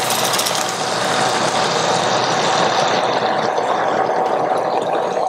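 Sauce of vegetarian oyster sauce, soy sauce, sesame oil, brown sugar and water sizzling steadily as it is poured into a hot oiled frying pan over pan-fried bean curd skin rolls.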